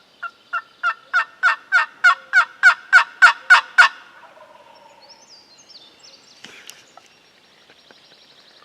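Turkey yelping: a run of about a dozen sharp, evenly spaced yelps, about three a second, growing steadily louder over the first four seconds. Faint high bird chirps follow.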